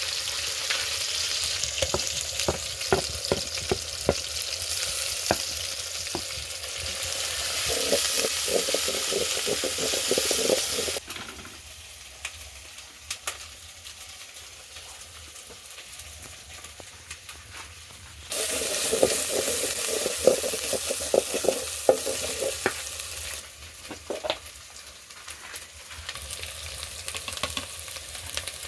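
Food sizzling as it fries in a pan, with a utensil knocking and scraping against the pan as it is stirred. The sizzle cuts out abruptly about eleven seconds in, comes back about seven seconds later, and falls away again a few seconds before the end.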